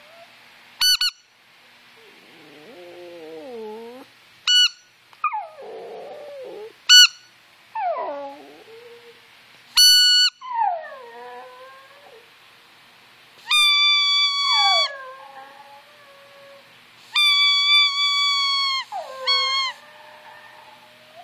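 Yorkshire terrier howling in reply to a squeaky toy: short high squeaks, then two longer ones, each answered by a drawn-out howl that slides down in pitch.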